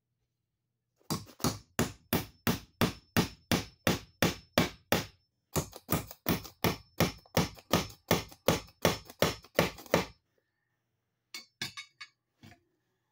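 Hammer driving nails through a blue plastic electrical box into a wooden wall stud: two runs of about a dozen steady blows each, roughly three a second, with a short pause between. A few lighter knocks follow near the end.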